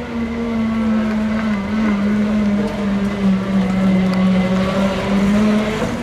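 Toyota HiAce rally van's engine running steadily at low revs as the van rolls slowly on a gravel road. Its note drops slightly about a second and a half in and then holds.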